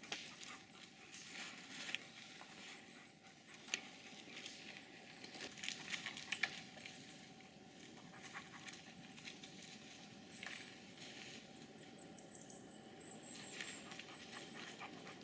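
Faint rustling and scattered sharp crackles of dry twigs and leaf litter as someone moves through dry forest undergrowth.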